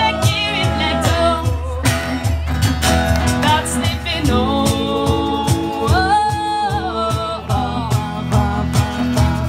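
Live band music with a woman singing over electric and acoustic guitars and a steady drum beat.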